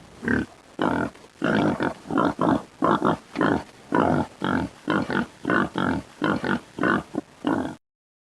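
Boar sound effect: a fast run of pig-like grunts, about two a second, that cuts off suddenly near the end.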